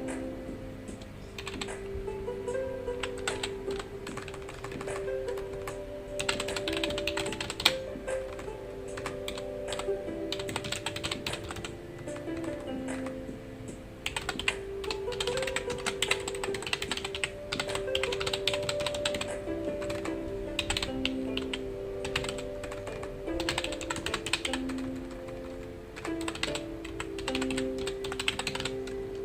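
Computer keyboard typing in bursts of rapid key clicks with short pauses between, over soft background music of held notes.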